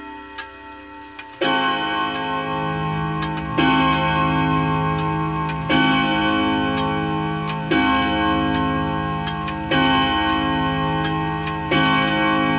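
Floor clock striking the hour: a deep ringing gong stroke about every two seconds, six strokes, each ringing on into the next, over the steady tick of the pendulum. The strike begins about a second and a half in, as the last notes of the chime melody die away.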